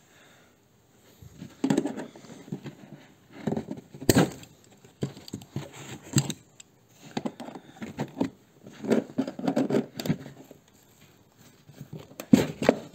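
Hand tools being handled and worked against metal parts: irregular knocks, clicks and short scrapes, the sharpest knock about four seconds in.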